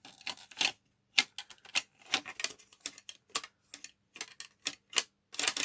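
Irregular run of sharp plastic clicks and taps as a piece of a Nerf Han Solo blaster's shell is worked loose by hand.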